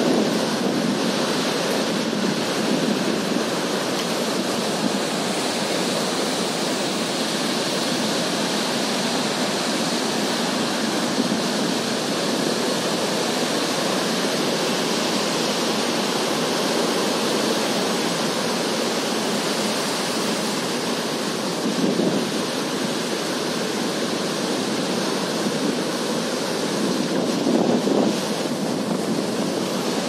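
Ocean surf breaking on a beach: a steady wash of waves, swelling briefly about two-thirds of the way through and again near the end.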